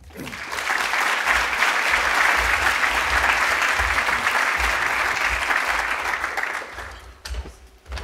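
Audience applauding. The clapping swells in at the start, holds steady and dies away about seven seconds in, followed by a couple of light knocks.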